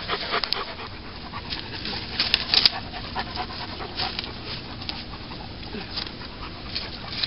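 A dog panting, with irregular sharp crackles and clicks throughout, loudest about two and a half seconds in.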